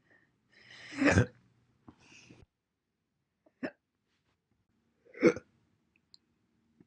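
A woman hiccuping three times: sharp single hiccups about a second in, midway and near the end, the middle one shorter and softer. A soft breath follows the first.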